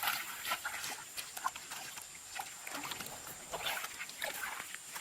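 Farm dogs and cats making short, scattered little noises, a few every second, over a faint steady hiss.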